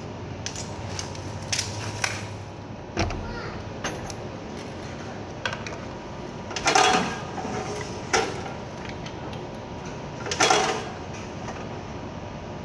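Scattered knocks and clatters of workshop handling over a steady low background, with two louder, sharper bursts about seven and ten and a half seconds in; the chop saw is not cutting.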